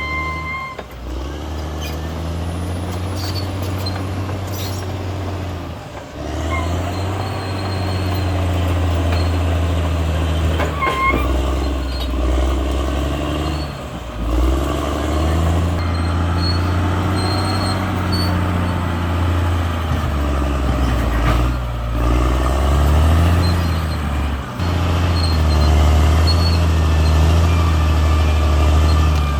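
CAT D6R XL bulldozer's diesel engine working hard under load, its pitch rising and falling as the throttle and load change, with short dips every few seconds.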